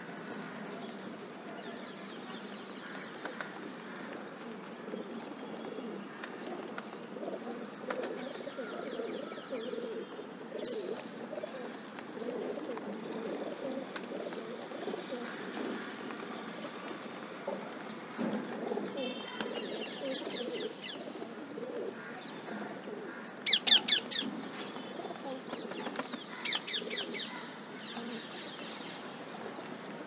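Rock pigeons cooing steadily while they feed, with wing flapping and scattered high chirps from other birds. A few short loud flurries of fast flutter or chatter come about two-thirds of the way in, the loudest near the middle of them.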